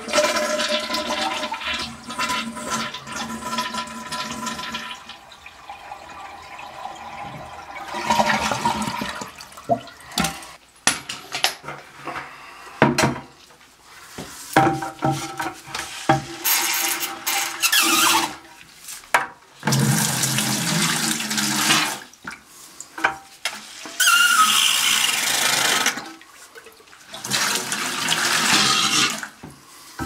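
Water rushing and splashing in a toilet tank in several irregular bursts, with short knocks and clicks of handling between them.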